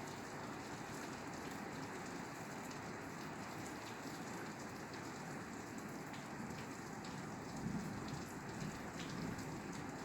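Steady rain falling on a roof, a constant patter with scattered individual drop ticks.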